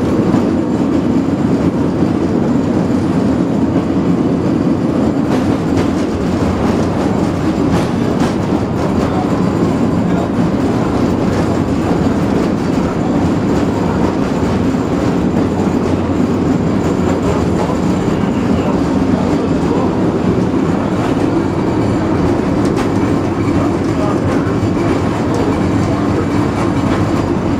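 1919 Birney streetcar heard from inside the car while running along its track: a steady rolling noise of steel wheels on rail and the running gear, with a few faint clicks.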